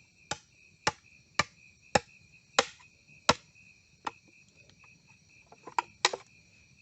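Blade chopping notches into a wooden pole: six sharp chops in about three seconds, then a few softer knocks near the end. Crickets or similar insects drone steadily underneath.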